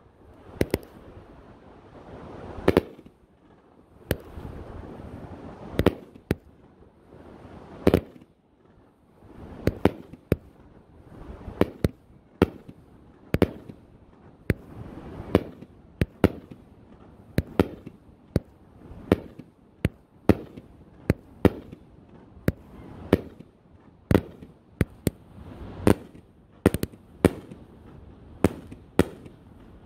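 Pyroland 'Blue Raspberry' 500 g consumer fireworks cake going off: dozens of sharp bangs from the shots bursting, coming faster and closer together in the second half, with a rushing hiss between them.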